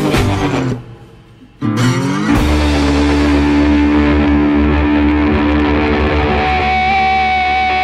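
Background music with guitar. It nearly drops out for under a second about a second in, then comes back with long held notes.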